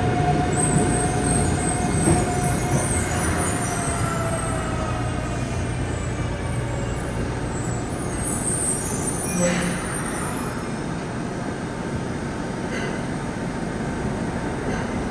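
Yokohama subway 3000A-type train arriving and braking to a stop, its Mitsubishi GTO-VVVF inverter giving a whine that slides down in pitch and fades over the first few seconds, over a steady rumble. A short hiss about nine and a half seconds in.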